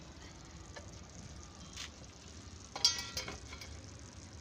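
Pot of chicken pulao sizzling faintly and steadily over a wood fire, with a short metal clatter of a utensil against the pot about three seconds in.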